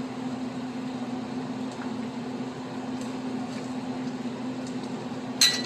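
Steady low mechanical hum, with a few faint ticks and one sharp, ringing metal clink near the end, typical of a metal utensil striking a cooking pot.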